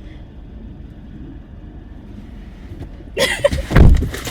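A steady low rumble, then about three seconds in a sudden burst of loud thumps and knocks.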